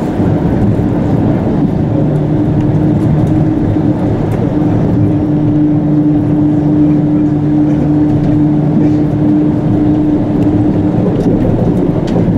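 Chiba Urban Monorail Urban Flyer 0-series suspended monorail car running between stations, heard from inside the cabin: a loud, steady low running rumble with a motor hum that holds one pitch through the middle.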